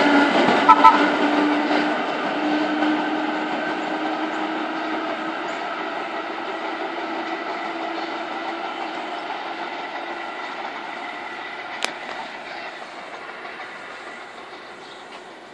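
Vintage R1-9 subway train running away down the track, its steady motor hum and wheel noise fading. Two brief sharp sounds come about a second in, and there is a single click near the end.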